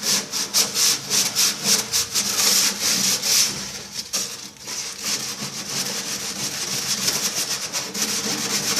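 Rust being scrubbed off the metal interior of a microwave oven cavity by hand with an abrasive, in quick back-and-forth strokes of about four a second, easing briefly about four seconds in, then going on as steadier rubbing.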